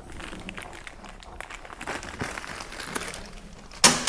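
Hands working a shouldered bolt into a part on a Kawasaki ZX-9R motorcycle: faint handling noises and small clicks, then one sharp knock near the end, the loudest sound. The bolt turns out too short to go through.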